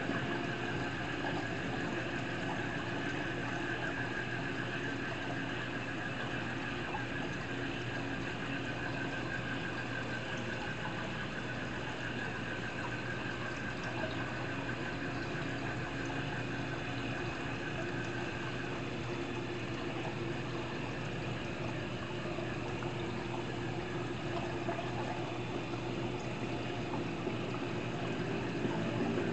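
Aquarium filtration running: water flowing and bubbling over a steady pump hum.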